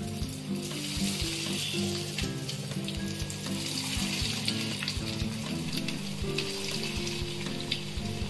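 Breaded fish fingers deep-frying in hot oil in a kadai: a steady sizzle and bubbling as the pieces are dropped in one by one, with a few light clicks. Music plays underneath.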